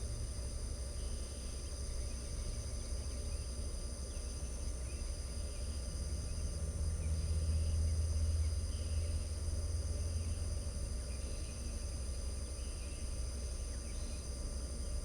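Steady chorus of crickets holding several high, unbroken tones, with faint scattered bird chirps. A low rumble underneath swells for a few seconds midway.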